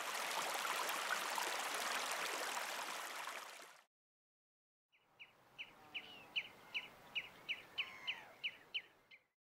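Steady rushing of running water that cuts off abruptly just before four seconds in. After about a second of silence, a bird calls repeatedly over a faint background: short, sharp chirps that fall in pitch, about three a second.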